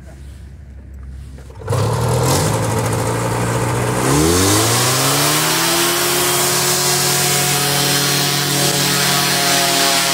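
Paratrike engine with its pusher propeller. The engine comes in suddenly about two seconds in and runs at a steady low speed. About four seconds in it revs up and holds a steady higher pitch, with a strong rush of propeller air.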